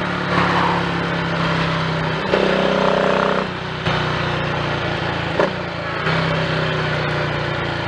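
Triumph Tiger Cub's single-cylinder four-stroke engine running on the road, its note stepping up and down a few times, with a couple of short clicks. It runs without misfiring on a fresh carburettor slide, needle and jets fitted to lean out a rich mixture.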